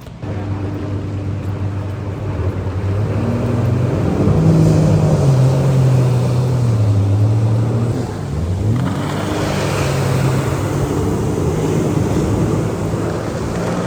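Jet ski engine running under throttle, its pitch rising and falling, with a rush of wind and water. About eight seconds in the throttle drops off briefly and the engine revs back up.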